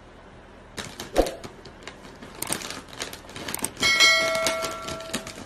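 Potato chip bag crinkling and crackling as a cat paws and pushes its head into it, with a knock just after a second in. About four seconds in, a bright bell-like ding from a subscribe-button sound effect rings out and fades over about a second and a half.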